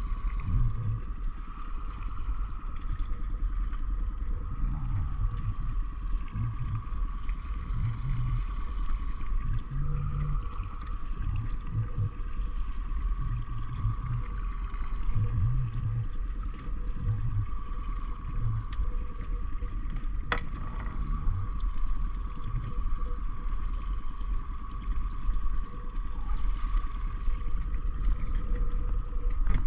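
A small boat's outboard motor running steadily at slow trolling speed: a steady whine over a low drone, with irregular low buffeting on the microphone. One sharp click comes about two-thirds of the way through.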